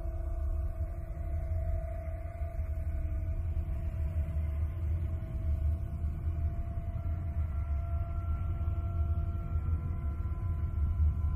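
Eerie space 'planet sound': spacecraft radio or plasma-wave signals turned into audio, a deep steady rumble with several long held tones above it, and a higher tone coming in about seven seconds in.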